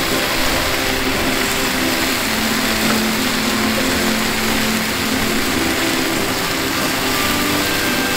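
Okonomiyaki sizzling on a flat-top griddle: a steady frying hiss with a steady mechanical hum underneath.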